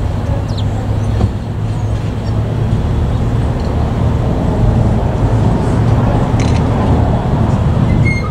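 Diesel engine of a DSA-class shunting locomotive running with a steady low drone as it moves slowly up the track to couple onto its train.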